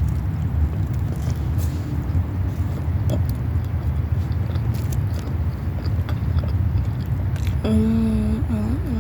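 Someone biting into and chewing a fast-food burger, with faint crunchy clicks over a steady low rumble. Near the end comes a wavering hummed "mmm" of enjoyment.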